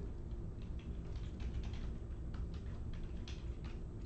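Typing on a computer keyboard: irregular key clicks, several a second, over a steady low hum.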